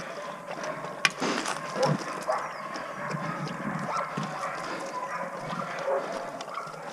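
Harnessed sled dogs vocalising, with a sharp click about a second in.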